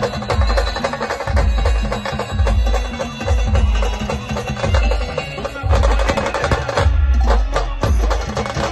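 A band playing a devotional song to Saptashrungi Devi, with a steady beat of deep drum strikes and sharp percussion clicks under the melody.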